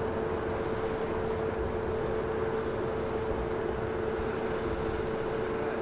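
Antonov An-12BK's four Ivchenko AI-20 turboprop engines running during the landing rollout: a steady drone with one held tone over a broad rumble.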